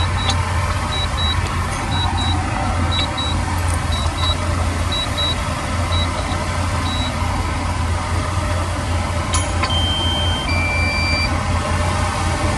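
A heavy construction machine's diesel engine running steadily while its reversing alarm beeps in quick pairs about once a second. The beeping stops about seven seconds in, and a few brief, steady, higher tones follow near the end.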